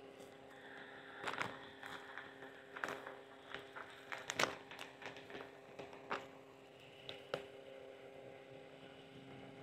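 Scattered sharp clicks and short crinkles as a plastic food packet and chopsticks are handled, loudest about halfway through, over a steady faint hum.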